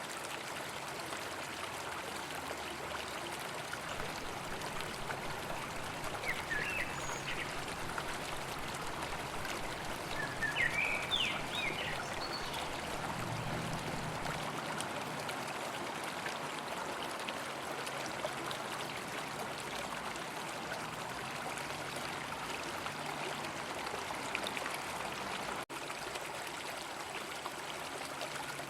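A river flowing with a steady rushing wash of water. A few brief high chirps come through about six seconds in and again around ten to twelve seconds.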